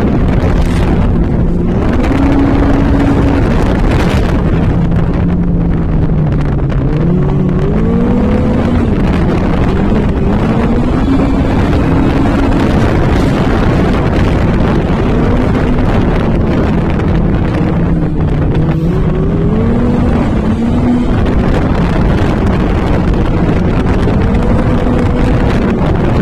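Off-road vehicle engine running under load, its pitch rising and falling every few seconds as the revs change, over a heavy rumble and wind noise on the microphone.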